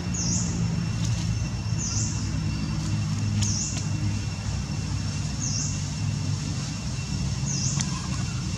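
Outdoor background with a steady low rumble like a distant engine, and a short high chirp repeating about every two seconds over a faint steady high tone.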